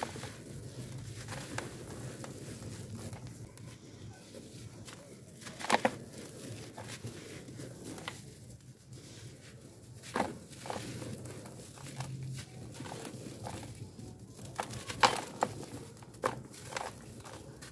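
Dry, gritty charcoal-dust chunks being crushed and crumbled by hand, with a soft gritty rustle of powder falling and a few sharp crunches as chunks break, the loudest about six, ten and fifteen seconds in.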